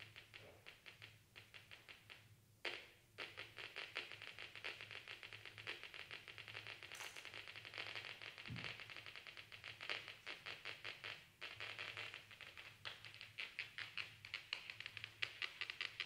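Rapid, even train of dry clicks from the Exo.Rosie wearable electronic instrument, breaking off briefly a few times, over a steady low hum.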